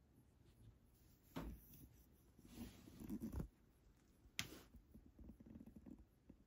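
Faint close-up rustling and handling noise against the cat's fur and the fleece blanket, with a few soft scuffs and one sharp click about four and a half seconds in.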